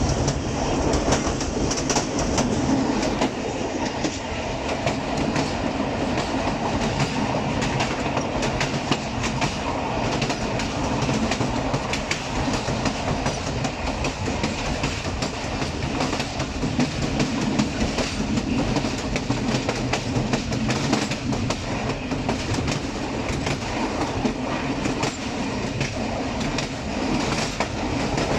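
Passenger train coach running along the track: a steady rumble of wheels on rail with frequent clickety-clack of the rail joints, heard from the rear of the train.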